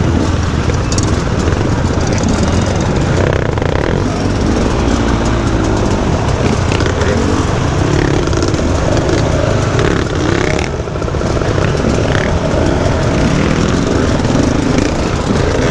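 Several enduro dirt-bike engines running at close range, among them the rider's own KTM 250 EXC two-stroke, with revs rising and falling as throttles are blipped at walking pace.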